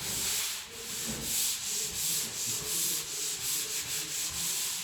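Dried drywall joint compound being sanded by hand: quick, repeated back-and-forth rasping strokes of sandpaper over the mud.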